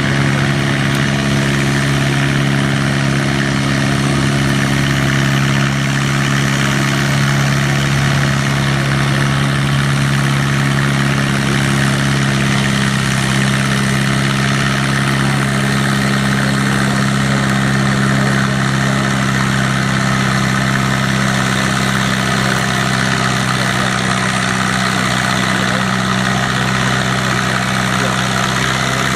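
Farm tractor's diesel engine running loud at a steady, unchanging high speed, held throughout without any rise or fall in pitch, with a dense mechanical rush over it.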